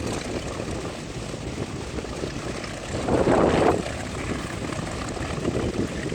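B-25 Mitchell's twin Wright R-2600 radial engines running, with a brief louder swell of noise about three seconds in.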